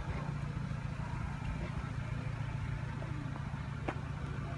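A car engine idling: a steady low hum, with one short click near the end.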